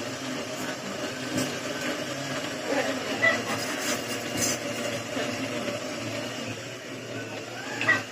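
Electric kitchen blender running steadily, grinding the remedy mixture until it is smooth.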